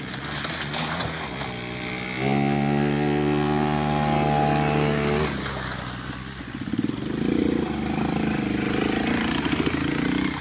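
Small youth ATV engine running on the trail; from about two seconds in it holds a steady, even pitch for about three seconds, the loudest part, then turns rougher and more uneven as the throttle varies.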